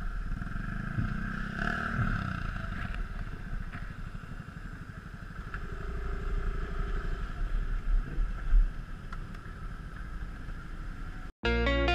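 Motorcycle engine running at low revs, a regular low pulsing with a few louder swells. Near the end it cuts off abruptly and music begins.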